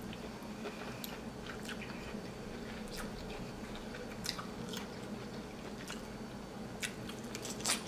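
Close-up mouth sounds of eating a king crab knuckle: scattered wet clicks and smacks of biting and chewing, the loudest one near the end.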